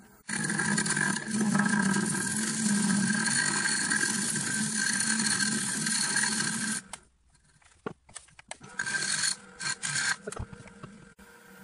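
A lathe turning tool cutting into a spinning wood-and-resin bowl as it is shaped, with a continuous scraping cut for about six and a half seconds. After a short pause come a few brief, broken cuts.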